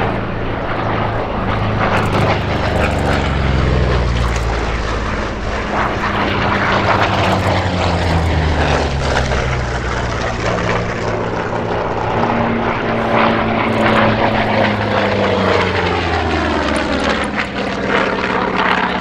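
Piston-engined propeller aircraft flying past low, their engine drone dropping in pitch as each passes: once in the first half and again in the second.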